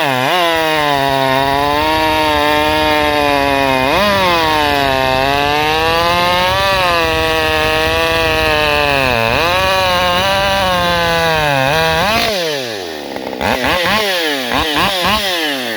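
Husqvarna 550 Mark II two-stroke chainsaw, fitted with a hand-filed C85 chain, running hard and cutting through wood, its pitch dipping and recovering under load. About twelve seconds in it leaves the cut and is revved in a few short blips.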